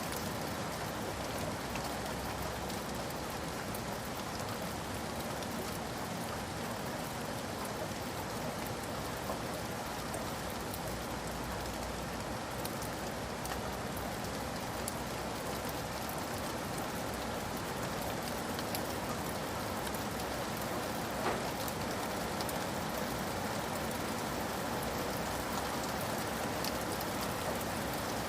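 Steady rain falling on a roof: an even hiss with scattered sharp drop ticks.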